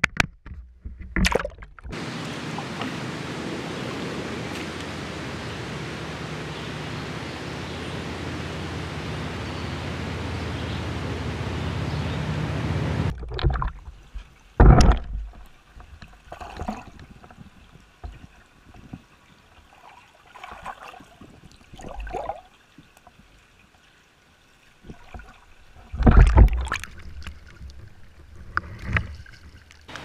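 A GoPro camera in its waterproof housing under the water of a trout pond: a steady muffled water noise that cuts off suddenly about thirteen seconds in, then scattered knocks and thumps of the housing being moved and bumped, two of them loud.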